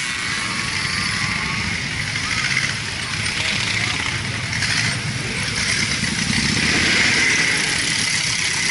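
Motorcycles of a slow parade riding past one after another, engines running at low speed, with scooters among them near the end.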